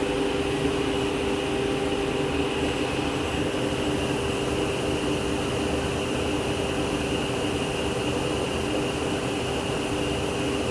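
Martin T60 sliding table saw running steadily during a multi-pass dado cut: an even machine hum with a constant high whine and no separate cutting strokes.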